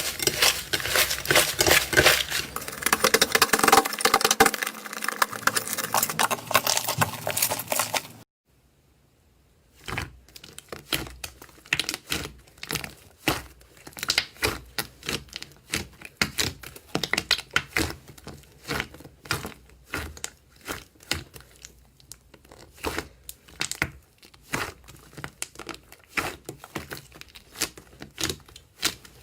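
Slime being squished and worked by hand, making dense crackling and popping clicks. After a short break about eight seconds in, it turns to quieter, regular clicking pops at about two a second as the slime is pressed and released.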